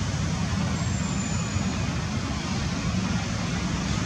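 Steady low rumble of outdoor background noise, with a brief faint high-pitched tone about a second in.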